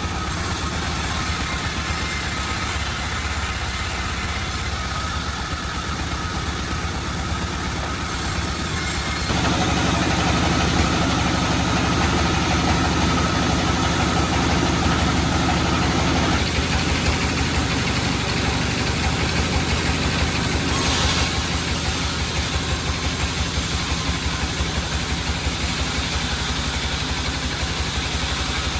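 Sawmill machinery running steadily with an engine-like hum, growing louder about nine seconds in and easing back a few seconds later, with a short rushing flare near the twenty-one-second mark.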